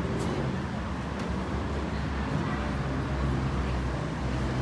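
Road traffic held at a closed level crossing: a steady low rumble of idling vehicle engines, with a few faint clicks.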